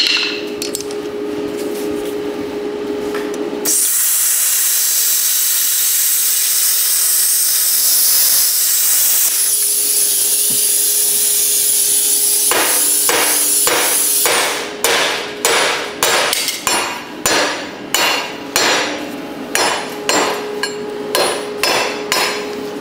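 Plasma cutter cutting a seized nut on a wheel hub: a loud, steady hiss of the arc and air starts about four seconds in and lasts about ten seconds. Then a small hammer strikes the steel nut and hub to knock it loose, about a dozen sharp blows a little over one a second.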